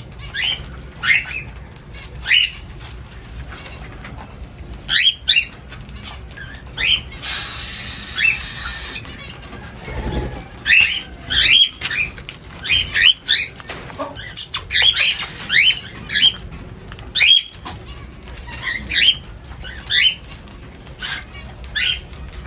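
A flock of aviary birds calling over and over with short, downward-sliding chirps while feeding, with wings flapping. A rush of noise comes about seven seconds in, and a low thump comes about ten seconds in.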